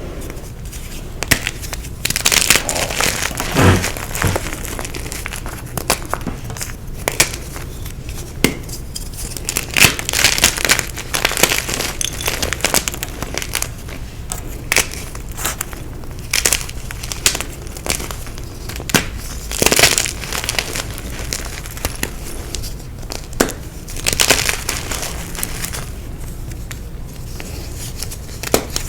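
Dyed gym chalk being crushed, in irregular dry crunches and crackles. Some bursts are dense, others are single sharp snaps.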